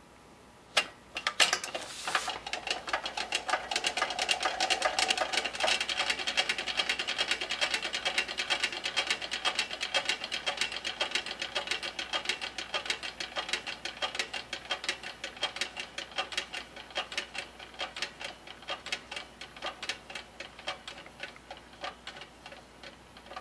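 Chein Ride-A-Rocket tin wind-up carousel's clockwork motor running: a few sharp clicks near the start, then rapid mechanical ticking that gradually slows and fades as the spring runs down.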